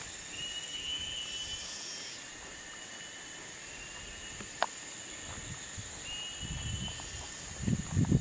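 Insects, crickets or cicadas, droning steadily and high-pitched, with short high chirps recurring every second or two. A single sharp click about four and a half seconds in, and low rumbling handling noise near the end.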